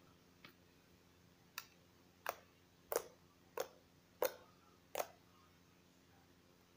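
Air bubbles in a slime popping: seven sharp pops, about one every two-thirds of a second, over a faint steady hum.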